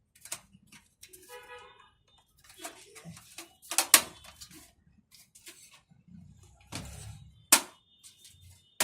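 Sharp metal clicks and clatter as the back panel cover (I/O shield) is worked out of a PC case, the loudest snap about four seconds in.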